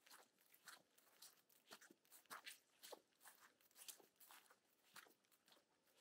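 Faint footsteps of a walker crunching along a path, a steady run of about two or three crisp steps a second.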